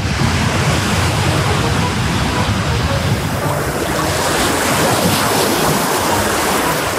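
Small sea waves breaking and washing up a sandy beach: a steady rushing surf that grows brighter and fuller about four seconds in as a wave breaks close by.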